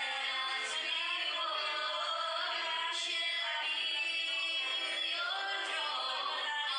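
Worship song: a woman singing into a microphone over instrumental accompaniment, with long held notes.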